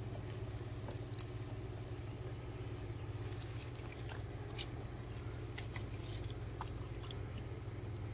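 Electric pond pump running with a steady low hum, air still trapped in the pump system. A few light clicks of handling sound over it.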